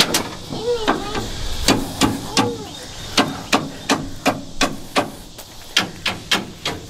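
Repeated sharp knocks, about two to three a second and uneven in spacing, like hard taps on metal.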